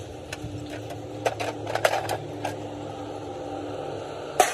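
Hand tools and metal parts clicking and knocking during work on a truck differential, over a steady low hum. A cluster of light taps comes in the middle and a sharper, briefly ringing clank near the end.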